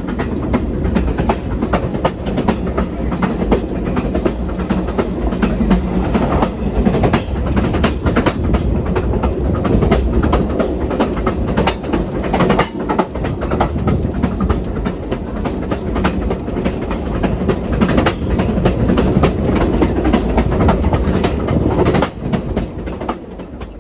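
A train running on rails: a steady rumble with frequent sharp clicks of wheels over the track, dropping off near the end.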